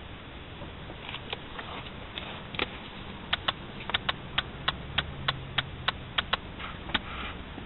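Paper pages of a hardback book flicked off the thumb one after another, a run of sharp page snaps about three a second that stops near the end.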